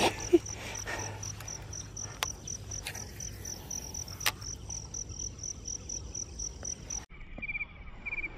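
Insects chirping outdoors: a high, even pulsing about three times a second, with a brief knock just after the start and a few faint clicks. Near the end the sound cuts abruptly to a faster, lower insect trill.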